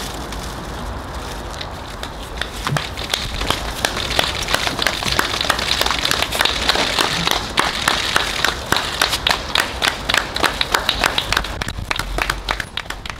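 A crowd applauding. The clapping swells over the first few seconds, holds steady, then dies away near the end.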